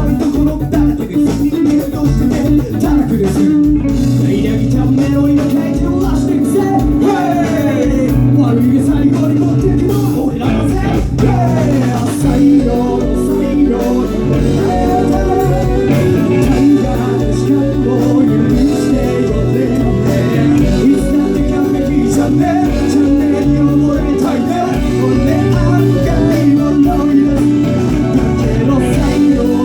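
Live band music with guitar, bass and drums playing steadily, with singing at times.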